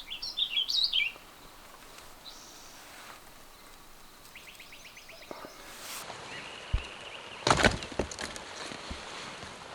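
Small birds chirping in short, fluttering calls, with a quick trill midway. Near the end comes a sharp clatter followed by a few lighter knocks.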